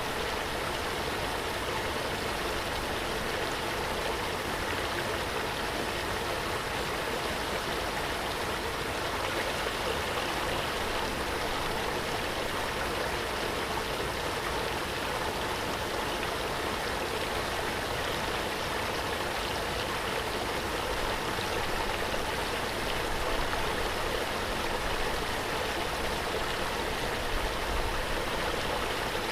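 Waterfall: water falling and rushing in a steady, even roar without a break.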